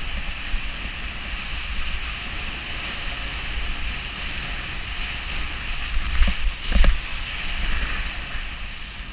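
Snowboard sliding over groomed snow with a steady hissing scrape, and wind buffeting the camera's microphone as a low rumble. Two short knocks come about six and seven seconds in.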